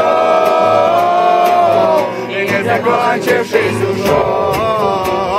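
A group of people singing together, holding one long note for about two seconds and then carrying on with the song's refrain.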